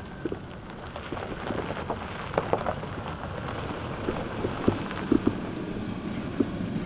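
Chevrolet Astro minivan rolling slowly over loose gravel: the tyres crunch steadily, with many scattered pops and clicks of stones.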